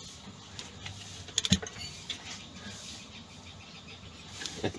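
A few short, sharp metallic clicks about a second and a half in, and again near the end, from wrenches working the flywheel nut of a two-stroke three-wheeler engine as it is tightened.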